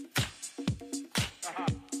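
A deep house music track playing, with a steady four-on-the-floor beat of about two hits a second, held synth chords and short sliding melodic notes.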